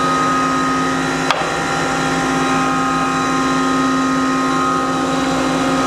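Jones & Shipman 1305 universal cylindrical grinder running, with its OD grinding-wheel spindle and headstock turning: a steady machine hum with several constant whining tones. A single sharp click comes about a second in.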